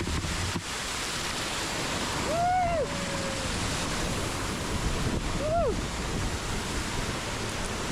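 Steady rush of waterfall water, with two short whoops from a person that rise and then fall in pitch, about three seconds apart.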